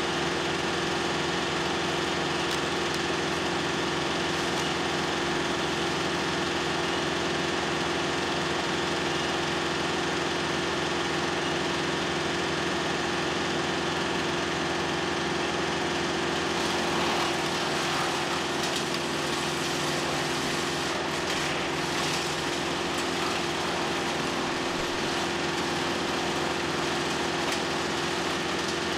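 Tractor-driven PTO wood chipper running at a constant speed: the tractor engine and the spinning chipper give a steady drone with a fixed hum. Branches are fed through it and chipped, giving a rougher grinding patch about halfway through.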